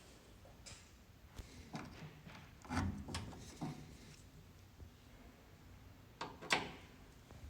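A few scattered clicks and light knocks, like parts or tools being handled. A cluster of dull thumps comes about three seconds in, and a sharp click, the loudest, comes about six and a half seconds in.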